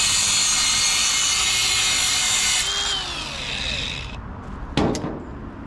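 A high-speed handheld rotary power tool, used for cutting or grinding metal rod, runs with a dense high-pitched hiss. About two and a half seconds in it is switched off and winds down in falling pitch. A sharp double clack follows near the end.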